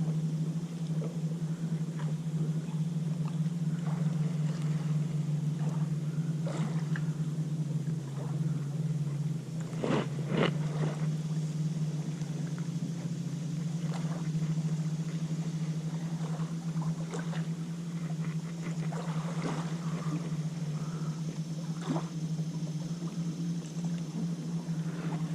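An engine idling steadily, a low even hum whose pitch drops for a couple of seconds about nine seconds in, with a few faint clicks over it.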